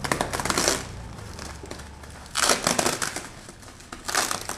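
White polyethylene foam packing wrap rustling and crinkling as hands pull and unfold it, in three short bursts.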